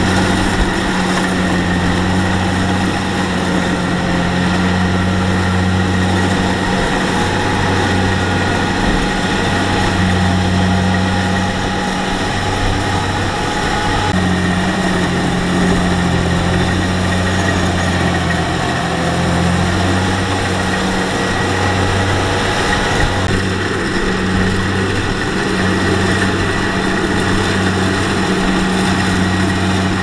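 Kubota crawler combine harvester running while it cuts rice: a steady low diesel engine hum under the constant noise of the working header and threshing machinery.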